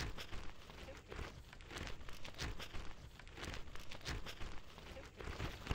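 Nylon play-parachute fabric rustling and crinkling close to the microphone in irregular swishes.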